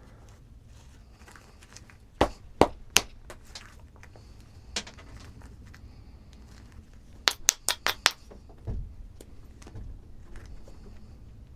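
Flintknapping: a knapping tool striking the edge of a stone preform with sharp clicks. Three spaced strikes come about two seconds in, then a quick run of five about seven seconds in, followed by a low thud.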